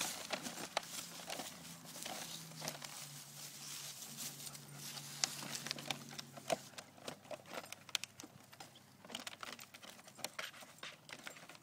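A dog mouthing and shoving a bucket across grass and dry leaves: scattered faint knocks, scrapes and crinkles.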